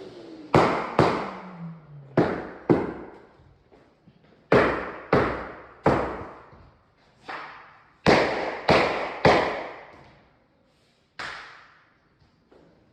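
About a dozen sharp hammer blows knocking timber floorboards into place, mostly in pairs and threes with short gaps between.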